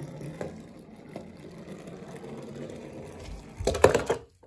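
Tomica die-cast toy cement mixer truck rolling down a wooden board, a low steady rumble with a few small clicks. About three and a half seconds in it ends in a short, loud rush of noise as the truck tumbles into a tub of wet soap foam.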